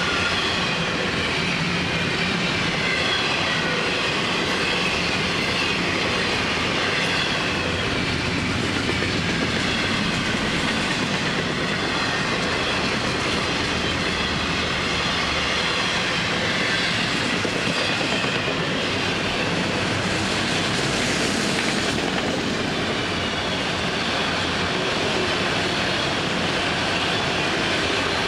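Freight train cars rolling past: steady rumble and clatter of steel wheels on rail, with a faint wavering high-pitched wheel squeal over it for much of the time.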